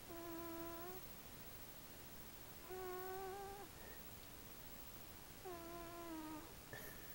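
Sleeping domestic cat snoring: three breaths about three seconds apart, each carrying a steady pitched note lasting about a second.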